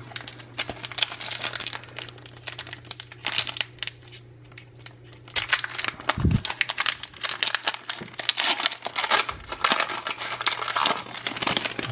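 Foil Pokémon trading card booster pack wrapper crinkling and tearing as it is worked open by hand, with a soft low bump about halfway through.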